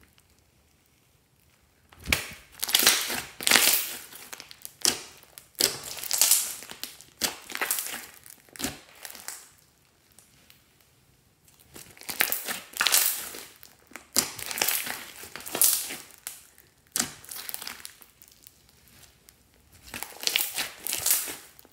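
Hands squeezing, stretching and pressing slime mixed with small foam beads, in bursts of crackly squishing noise with short quiet gaps between; it starts about two seconds in.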